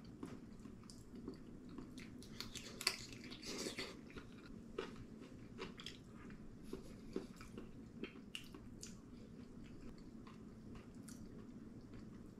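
A person eating spicy braised chicken: close mouth sounds of chewing and biting, with scattered small clicks of chopsticks and a spoon on dishes. A louder run of sounds comes about three seconds in.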